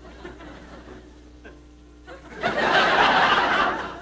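Studio audience laughing: a burst of laughter starting a little over two seconds in and lasting about a second and a half, after a stretch of quiet room sound.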